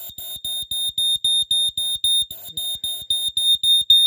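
Jameson Code One Snoopy smoke alarm's piezo horn sounding in rapid high-pitched beeps, about four a second, set off by canned test smoke.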